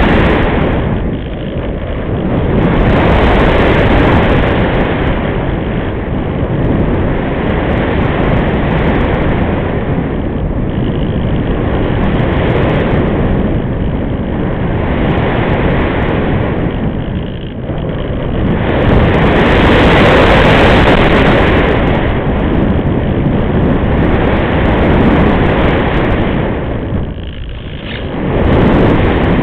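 Loud wind rush from the airflow over an RC glider's onboard keychain camera, swelling and easing every few seconds as the airspeed changes through banks and dives, loudest about two-thirds of the way through.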